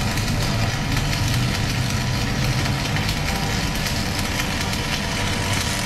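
Stick arc welding on a truck brake drum: the electrode arc crackles and sizzles without a break, over a steady low hum.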